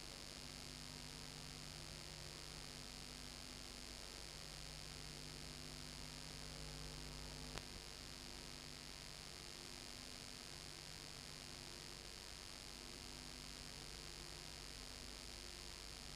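Steady electrical hum with hiss on an otherwise empty soundtrack, and a single faint click about seven and a half seconds in.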